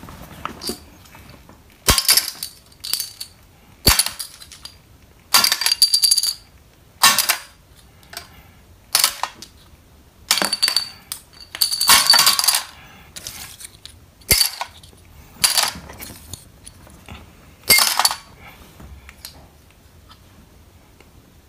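Small metal tins clinking and clattering as they are handled and set down, a dozen or so separate knocks with a bright metallic ring, stopping near the end.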